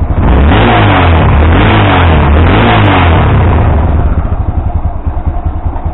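Yamaha XTZ 660 Ténéré's 660 cc single-cylinder engine revved up and down several times, then dropping back toward a steadier idle after about three and a half seconds.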